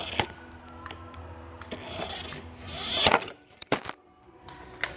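Scattered clicks over a steady low hum, then a loud knock and clatter about three seconds in as a camera propped on a seat topples over.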